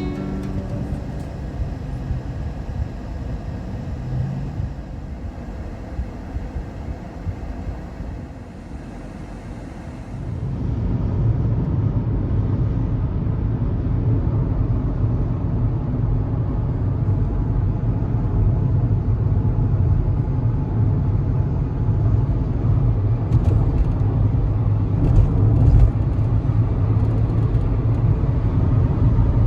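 A car on the move: a steady low rumble of road and wind noise that gets louder about ten seconds in.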